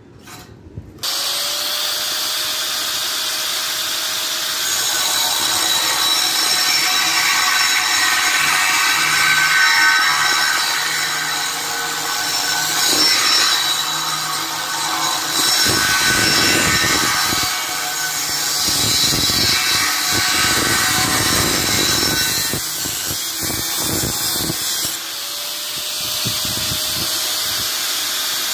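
Electric angle grinder switched on about a second in, its cutting disc grinding through a steel box-section bar in a steady, loud, hissing screech. The cut turns rougher and heavier through the middle.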